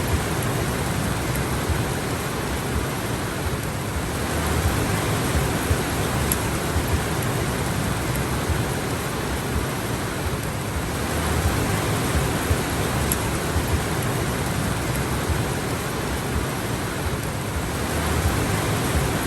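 Steady rain, an even, unbroken hiss with only small swells in loudness.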